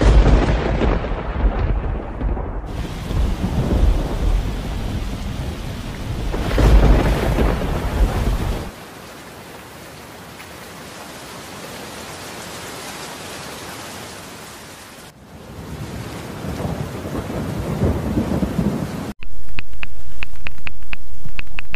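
Thunderstorm: heavy rain with rolling thunder. About nine seconds in the thunder dies away, leaving a quieter steady rain. The rumble swells back, and about 19 s in the sound jumps suddenly to a loud steady downpour.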